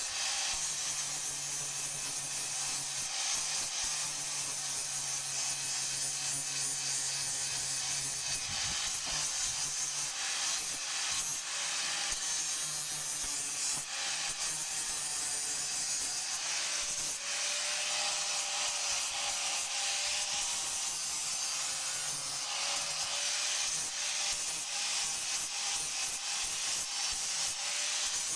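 An electric angle grinder with a flap disc grinds the steel head of an axe, giving a continuous rough, hissing abrasion. The motor hums steadily underneath. The pitch and texture shift a little as the disc is moved across the metal and eased off it.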